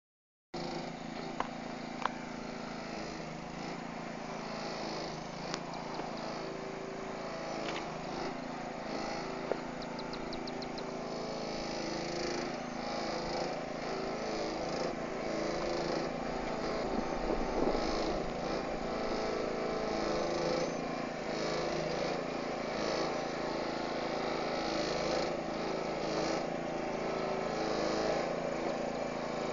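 Engine of a bitumen distributor truck running steadily while it sprays prime onto road base, slowly growing louder. A few sharp clicks sound in the first ten seconds.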